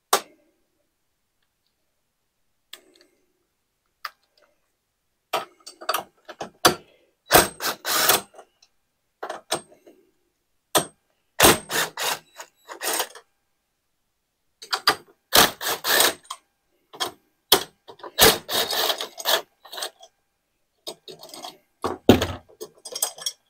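Cordless power tool running in short bursts, driving out 12 mm bolts on a Honda EU3000is generator, with sharp metallic clattering. About five bursts come in the second half, separated by pauses.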